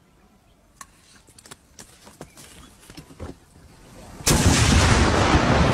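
Hand grenade detonating: a sudden loud blast about four seconds in that carries on as a rough low rumble. Before it, a few faint scattered clicks and knocks.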